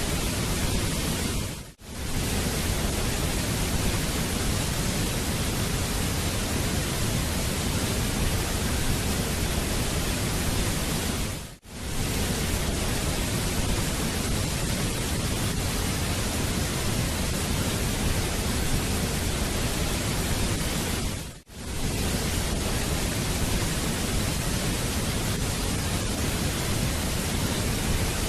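Waterfall rushing, a steady, even roar of water with no other sounds. It fades out and back in briefly three times, about ten seconds apart.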